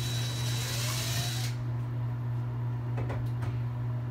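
Cordless drill boring a quarter-inch hole into the wall for about a second and a half, its pitch rising, then stopping. A few light clicks follow about three seconds in, over a steady low hum.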